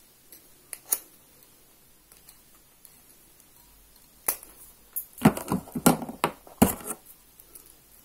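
Cutting pliers stripping the insulation off an electrical wire end: a couple of sharp clicks about a second in, then a louder run of snips and scraping between about four and seven seconds in.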